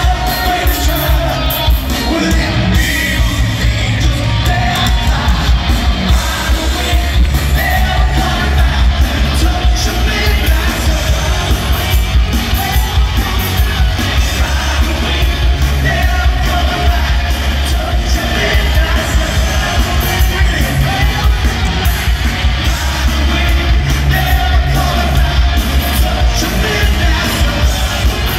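Live hard rock band playing loudly, heard from the audience in a large hall: electric guitars, bass and drums with a male lead singer, and yells over the music.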